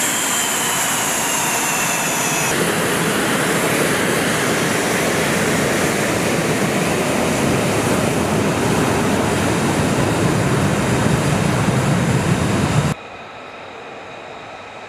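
F/A-18 Hornet's twin F404 turbofan engines running close by on the ramp. A high whine slides down in pitch over the first couple of seconds, then a loud, steady jet rush grows heavier as the jet taxis. About two seconds before the end it cuts off abruptly to a much quieter, distant airfield background.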